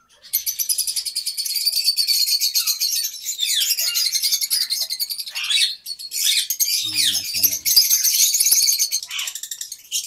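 A flock of lovebirds chattering without a break, many birds' rapid high calls overlapping.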